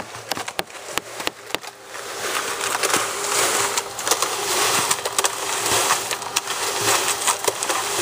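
Small electric cement mixer running, its drum churning wet concrete with a rough, gritty noise over a steady motor hum; it grows louder about two seconds in. A few sharp clicks and knocks come in the first two seconds.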